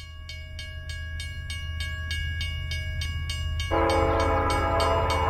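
Railroad crossing bell ringing at about three strokes a second over a low rumble that grows louder. About three and a half seconds in, a diesel locomotive's air horn starts and sounds as a loud held chord.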